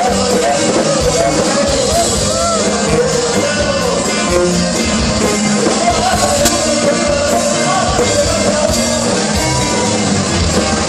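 Rock music with a singing voice over guitar and a full band, steady and loud.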